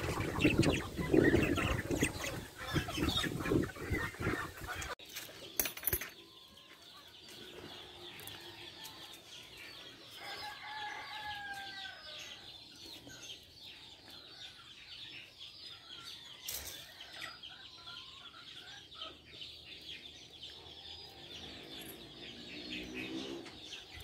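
Japanese hagoromo budgerigars in an aviary, chattering with a steady high-pitched twittering. A louder, lower run of bird calls fills the first five seconds, and a low rising call comes near the end.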